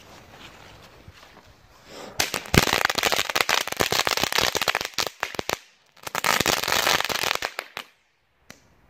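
Small ground fountain firework: the lit fuse fizzes quietly for about two seconds, then the fountain sprays sparks with a loud, dense crackling hiss in two bursts, about three seconds and then two seconds long, and cuts off abruptly near the end.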